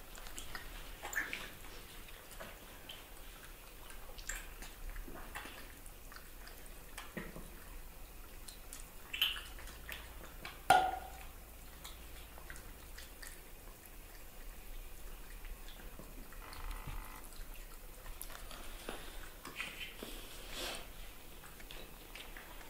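Baby macaque suckling at and handling a plastic milk bottle: scattered soft wet smacks and clicks, with a few sharper plastic taps, the loudest about eleven seconds in.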